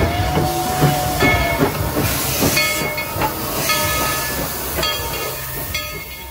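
Narrow-gauge steam locomotive running with steam hissing.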